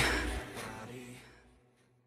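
Background hip-hop music fading out over about a second.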